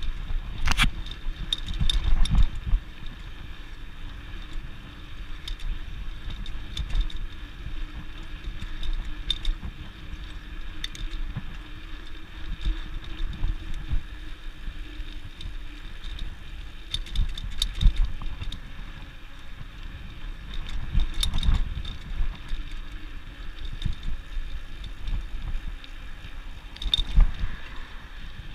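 Bicycle riding over a concrete sidewalk: a steady rumble of tyres and frame, with irregular knocks and rattles as the wheels cross the pavement joints.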